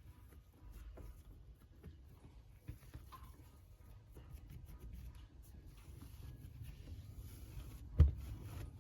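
Faint handling sounds of hands stretching and patting sourdough dough on a counter, with scattered soft taps and one sharp knock near the end.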